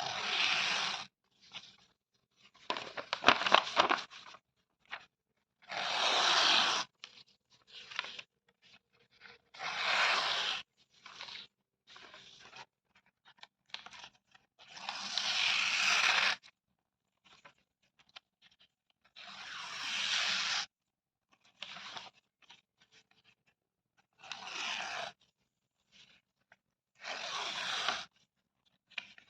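Paper being torn again and again: about eight separate rips, each lasting roughly a second, with soft rustling and crackling of the paper between them. The rip about three seconds in is the loudest and most crackly.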